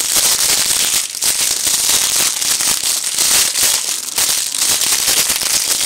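Clear plastic packaging crinkling and crackling close up as hands unwrap it, a dense run of tiny crackles.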